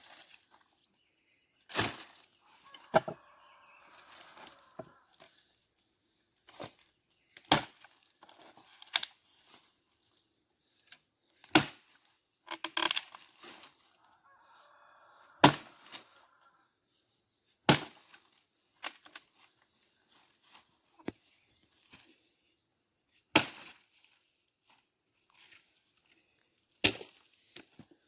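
Dry, seasoned wood being chopped: about a dozen sharp cracking strikes at irregular intervals of one to three seconds, some splintering.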